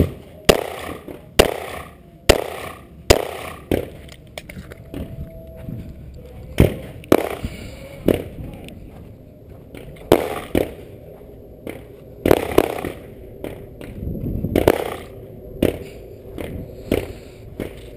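Glock 20 pistol firing 10mm Hornady Critical Duty 175 grain rounds: a string of sharp shots, each with a ringing echo, about one a second at first and then more irregularly spaced.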